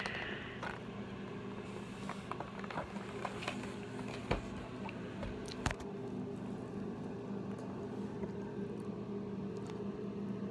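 Cardboard-and-plastic toy box being handled and pried at while it resists opening: scattered small clicks, taps and rustles, with two sharper clicks about four and five and a half seconds in, over a steady low hum.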